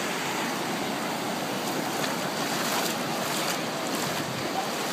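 Ocean surf breaking and washing up the shore, a steady rushing noise.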